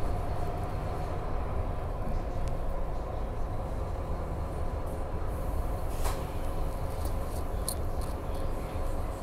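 Scania K310UB city bus heard from inside the cabin while under way: a steady low engine and road rumble. A sharp click comes about six seconds in and a few light rattles follow, just before the bus brakes hard near the end.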